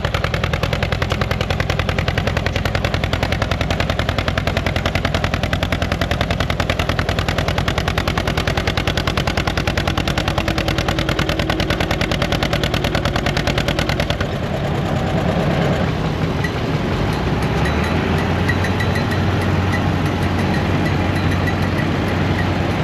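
Old engine running with a rapid, even beat of several exhaust pulses a second. After about 14 seconds the beat gives way to a steadier engine drone with a faint high whine.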